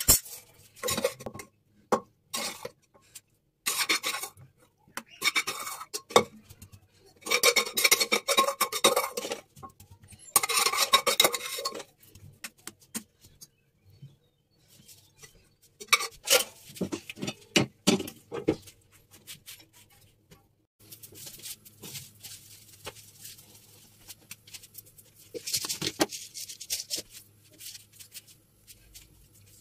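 A perforated skimmer spoon scraping and clinking against a pressure cooker and a kadai as cooked rice is scooped from one into the other, in irregular bursts of clatter with short pauses between.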